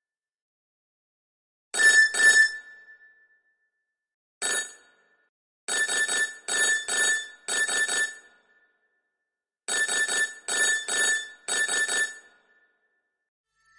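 Nokia 206 mobile phone ringtone imitating an old telephone bell: short bell-like trills, first a pair, then a single one, then two runs of about five quick rings each, separated by silences.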